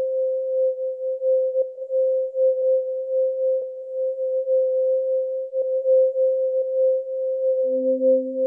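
A steady pure electronic tone, wavering slightly in loudness, with faint clicks about once a second. A second tone, about an octave lower, joins near the end.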